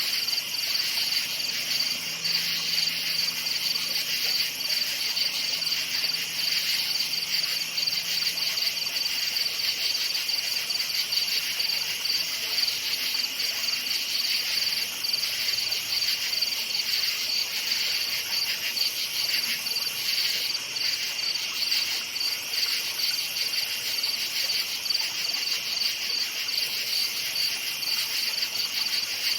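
Crickets chirping in a dense night chorus: a steady, high-pitched, rapidly pulsing trill that never lets up.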